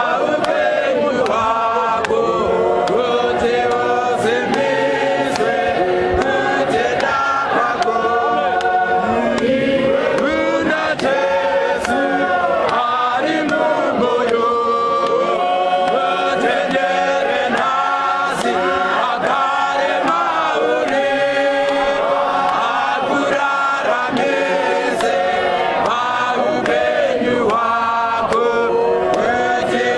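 A large church choir singing a Shona hymn unaccompanied, many voices together in harmony, held notes moving from chord to chord at a steady, full loudness.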